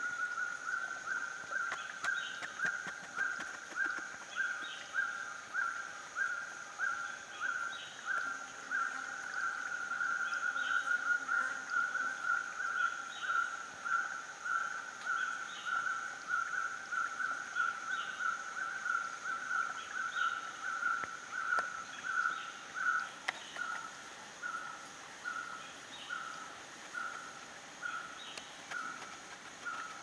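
Forest ambience: a steady high insect drone, with a loud, even call pulsing about twice a second that grows fainter and more spaced near the end, and faint chirps now and then.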